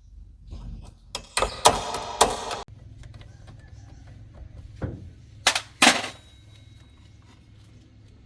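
A clattering, rattling burst lasting about a second and a half that stops abruptly, then three separate sharp knocks a few seconds later.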